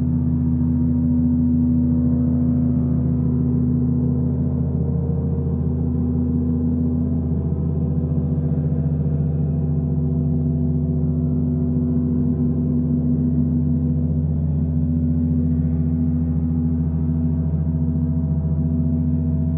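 Large gongs played continuously with mallets: a steady, deep drone with many ringing overtones, no separate strikes standing out.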